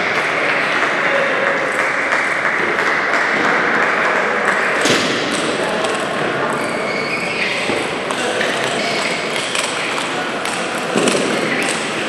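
Table tennis balls clicking off bats and tables at irregular intervals, over a steady murmur of voices in a large hall.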